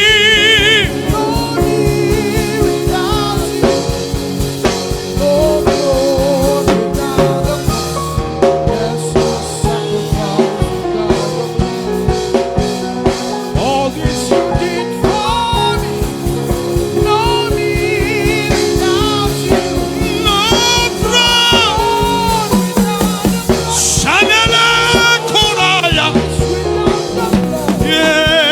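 Live worship music: a band with drum kit and keyboard chords playing a slow worship song, with singers holding long wavering notes, strongest over the last third.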